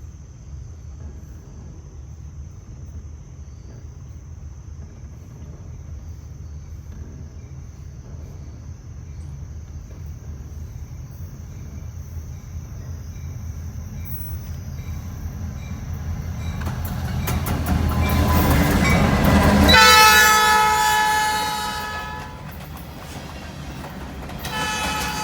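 Approaching train: a low rumble builds slowly for about twenty seconds, then the locomotive's horn sounds loudly for about two seconds, and a second horn blast starts near the end. A steady high insect tone runs for the first two-thirds.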